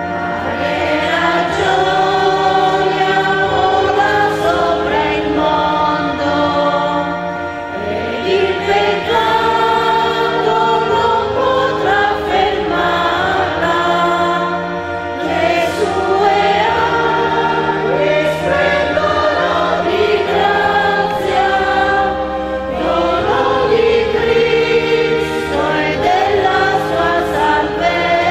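Small church choir of women's voices singing a hymn, with steady low notes held underneath the voices.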